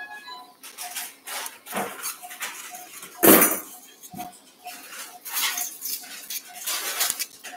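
Metal surgical instruments clinking and clattering, in irregular sharp clicks with a heavier clatter a little over three seconds in, over the steady beeping of an anaesthesia monitor at about two beeps a second.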